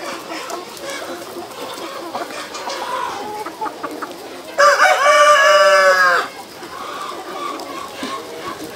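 A flock of chickens clucking and chattering, with a rooster crowing once about four and a half seconds in: one loud call of about a second and a half that drops in pitch at the end.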